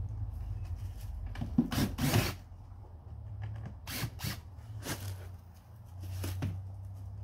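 Cordless drill-driver backing screws out of the base of a wooden shipping crate, running in several short bursts.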